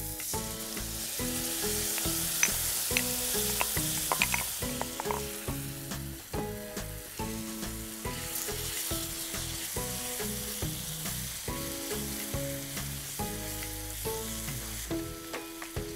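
Tomato and onion masala sizzling in oil in a cast iron skillet while a spatula stirs and scrapes it, with small scraping clicks now and then. Background music plays underneath.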